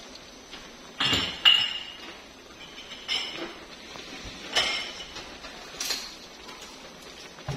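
Light metallic clinks and knocks of a metal wok and bowl as handfuls of soaked rice vermicelli are moved into the wok. There are about five, spread out, and one rings briefly.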